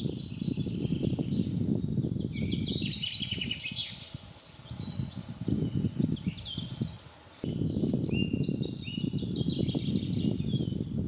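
Songbirds singing in short trills and whistled notes over a louder low rustling noise. The low noise fades out twice, around four seconds in and again near seven seconds, and comes back abruptly just before the eighth second.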